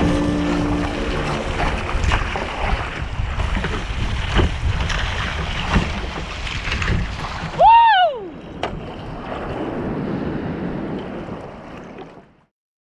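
Wind buffeting the microphone and water sloshing around a kayak at sea, with scattered small knocks and splashes. About eight seconds in, a single high call rises and falls, and the sound cuts off suddenly near the end.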